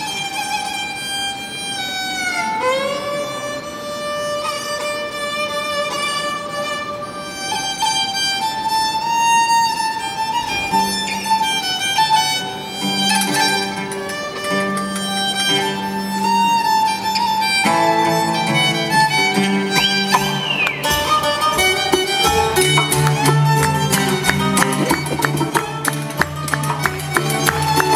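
Violin playing a folk tune live, opening with slow notes and sliding pitch glides. Lower sustained notes come in under it, and about three-quarters of the way through a plucked string instrument joins with fast, steady strumming.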